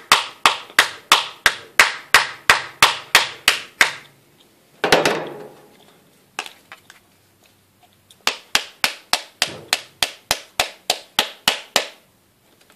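A pink Samsung touchscreen phone being hit again and again in an attempt to crack its display, which holds: sharp knocks, about three to four a second. The knocking stops a little before halfway with one longer, softer sound, and starts again after a short pause.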